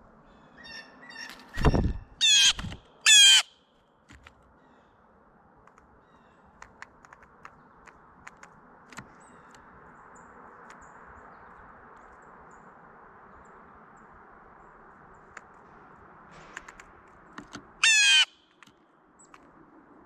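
Blue jay giving harsh, loud calls: two about a second apart near the start and a third near the end. A loud thump comes just before the first call, and soft clicks and taps are scattered in between.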